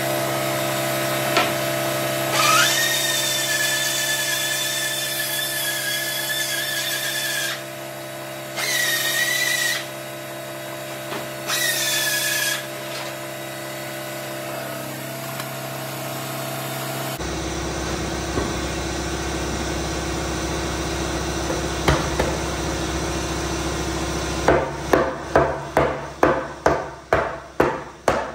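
A power tool's motor whines steadily for about five seconds, then runs in two short bursts. Near the end comes a run of sharp, evenly spaced knocks, about three a second.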